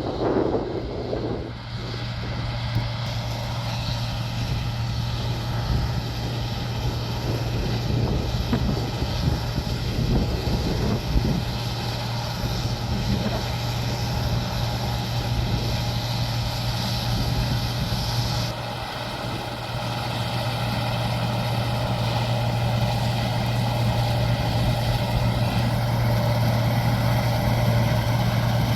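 Heavy farm machinery engine running steadily, with a constant low hum and several steady whines above it. The sound dips and changes briefly about two-thirds of the way through.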